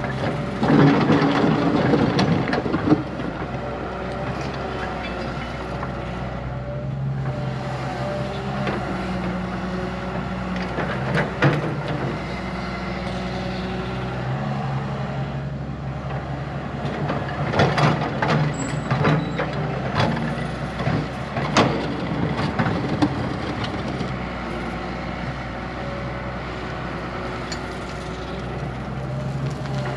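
Heavy diesel earthmoving machinery running steadily, with louder spells and sharp clanks and scrapes near the start and again around two-thirds through.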